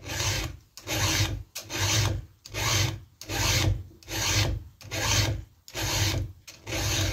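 Round chainsaw file sharpening a chain's cutter tooth by hand, in about nine steady, deliberate strokes, a little more than one a second.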